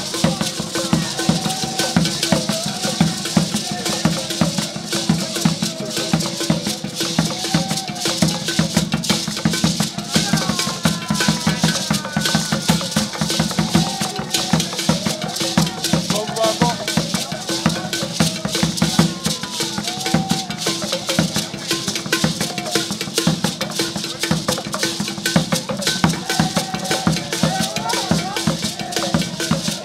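Traditional percussion: many hand-shaken rattles in a fast, dense rhythm with a drum beating under them, and voices singing and calling over the music.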